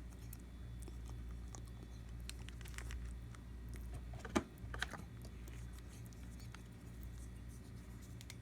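A rabbit chewing syringe-fed food, its teeth making small dry clicks, with two sharp squeaks in quick succession a little past the middle. The squeaking comes from overgrown teeth that needed trimming. A steady low hum runs underneath.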